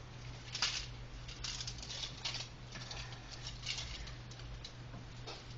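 Soft, irregular rustling and light crinkling of cloth and aluminium foil as a chilled cake roll is unrolled by hand, over a faint steady low hum.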